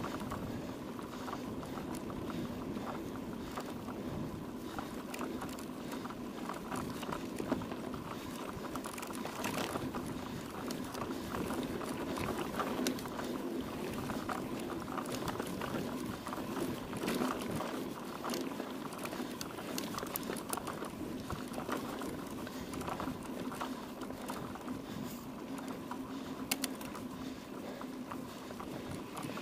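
Mountain bike ridden over rough ground: steady tyre and riding noise with continual rattling and ticking, and a constant low hum underneath.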